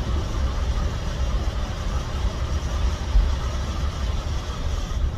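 Steady low engine rumble and road noise heard inside a vehicle's cabin.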